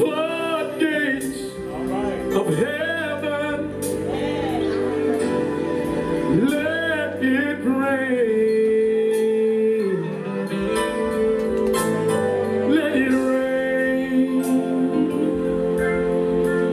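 Gospel-style worship music intro: sustained keyboard chords under wordless vocal runs that bend and waver in pitch.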